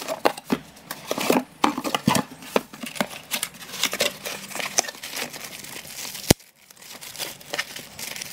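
Cardboard packaging being handled and opened: a small box slid out of a larger carton and its flaps pulled open, then a clear plastic bag crinkling as it is lifted out. There are irregular scrapes and rustles, and one sharp click about six seconds in.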